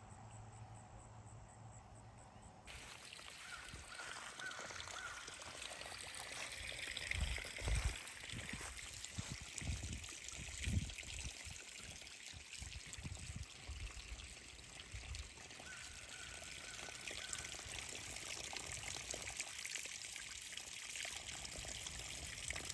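Water splashing and trickling steadily, starting a few seconds in, with a couple of low thumps.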